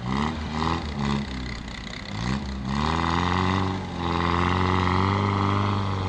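Off-road vehicle's engine revved in three short blips, then climbing to high revs and held there with a brief dip near four seconds in. The vehicle is stuck in the river and not pulling itself free.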